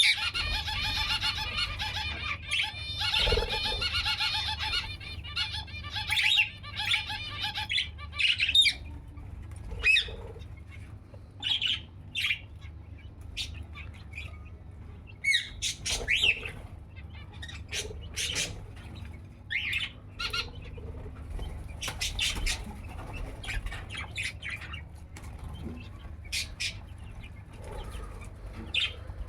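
Birds in a rooftop aviary: a busy run of chirping for the first several seconds, then scattered short calls and squawks with wing flapping.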